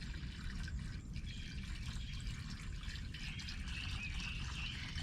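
Water trickling and dripping from a hose into a water dish, a steady running and splashing.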